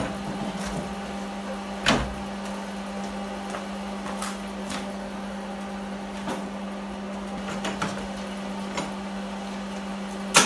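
Steady low electrical hum from a battery charger on a 1982 Pontiac Trans Am, with a few single sharp clicks spaced a second or more apart. The engine does not crank or start, because the battery is too flat.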